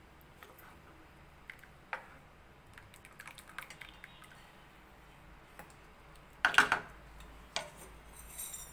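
Light clicks and taps of a nonstick pan being handled, with one louder clatter about six and a half seconds in.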